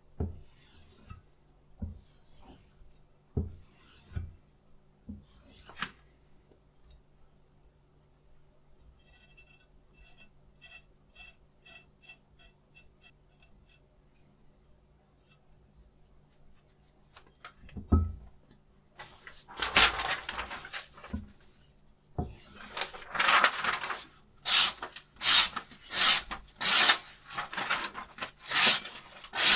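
A few short steel-on-stone strokes of a chef's knife across a diamond sharpening stone. From about 19 seconds in, the freshly sharpened blade slices repeatedly through a sheet of paper to test the edge, with loud rapid rustling cuts.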